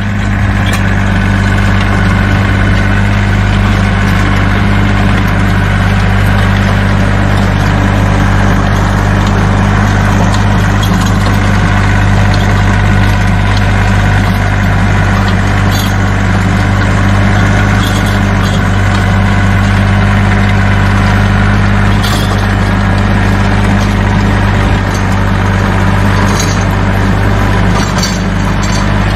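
Kioti CK3510 SE tractor's three-cylinder diesel engine running at a steady speed while driving a PTO rotary tiller through garden soil, with a loud, even hum and a few light clinks here and there.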